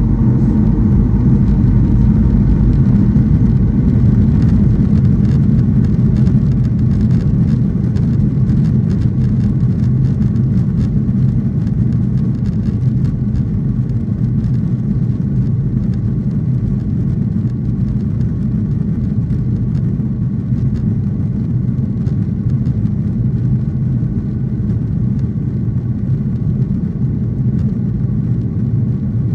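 Cabin noise of a Southwest Boeing 737 on its takeoff roll: the jet engines at takeoff power with a steady, loud low rumble from the wheels on the runway. Light scattered clicks and rattles run through the first half.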